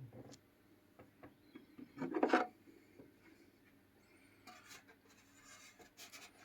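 Hands taking the hatch cover off a carbon-fibre RC speedboat hull: light clicks and taps, and a scraping rub about two seconds in.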